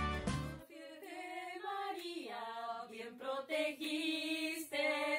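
Instrumental music ends about half a second in; then a group of women sing together unaccompanied, a hymn to Saint Joseph.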